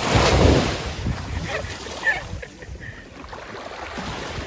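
Wind buffeting the microphone, a strong gust in the first second and then a lower steady rush.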